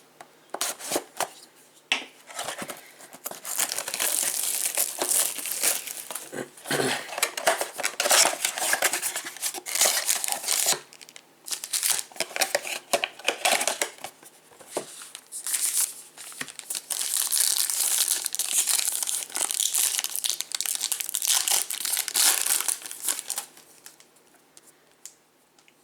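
Plastic wrapping of a trading-card blaster box and its packs being torn open and crinkled by hand. The crinkling comes in repeated bursts and dies down near the end.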